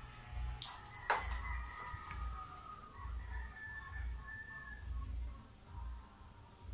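A chicken calling in the background: a run of short, broken high notes from about a second in. Two sharp clicks come just before it, and a low rumble pulses about once a second underneath.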